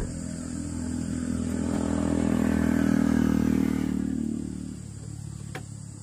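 A motor vehicle's engine passing by, growing louder to about three seconds in and then fading away. A single sharp click comes near the end.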